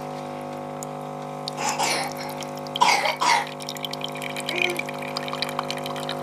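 Automatic bean-to-cup coffee machine running with a steady hum as it brews, coffee starting to trickle into the mug about halfway through. Two short noisy bursts come near the middle.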